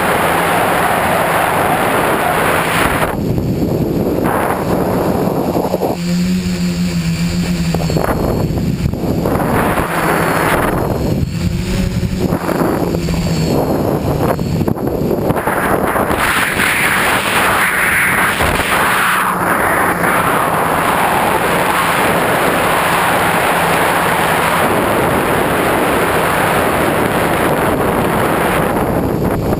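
Tricopter's electric motors and propellers buzzing, heard from the onboard camera under a steady loud rush of wind on the microphone. The motor tone rises and falls with the throttle a few times in the first half.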